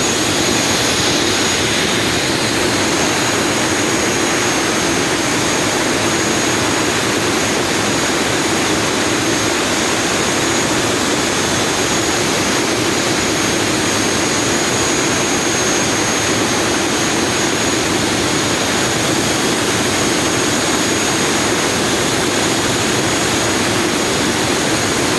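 Weichai WHM6160C550-5 six-cylinder turbocharged marine diesel engine running steadily at about 880 rpm. The turbocharger's steady high whistle sits over the loud engine noise.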